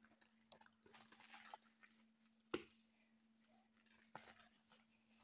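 Near silence with scattered faint clicks and taps of hands handling the product and its container, the sharpest tap about two and a half seconds in, over a faint steady hum.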